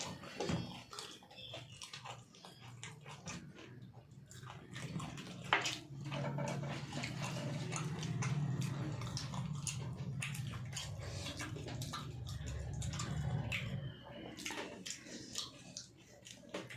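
Close-miked eating sounds: chewing, with many wet mouth clicks and smacks. A low steady drone runs underneath through the middle stretch.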